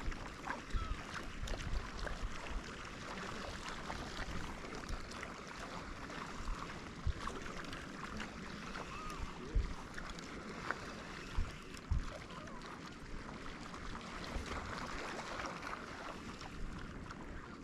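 Sea water sloshing and wind, with short gusts knocking on the microphone now and then.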